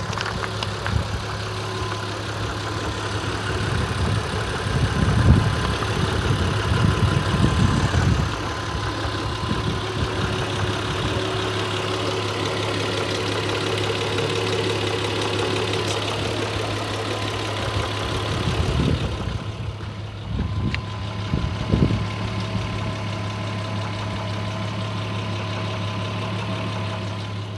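Audi A6 C4's 2.6-litre V6 (ABC) engine idling steadily, with a quiet intermittent tapping knock. The owner has not been able to locate the source of the knock.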